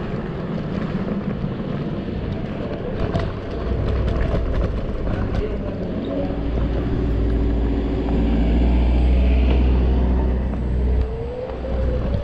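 Riding noise from a Zero 9 electric scooter: wind rumbling on the chest-mounted camera's microphone over tyre and road noise. The rumble grows heavier partway through and is loudest a little past the middle.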